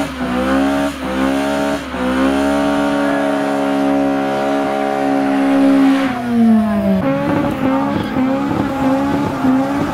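Car engine held at high revs during a burnout, the driven tyres spinning and squealing on the tarmac. The revs climb about two seconds in, hold steady for a few seconds, drop about six seconds in, then rise and fall.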